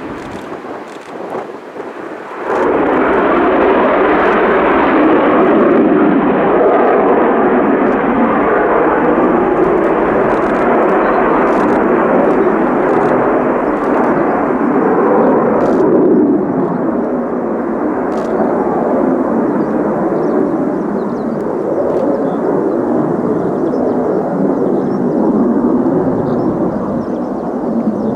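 Military jet engine noise: a loud, steady rush that comes in abruptly a couple of seconds in and grows a little duller past the middle, as a jet runs through a touch-and-go.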